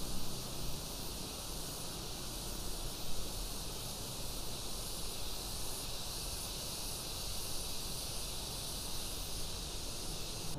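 Steady high-pitched hiss of outdoor background ambience, with no distinct event standing out.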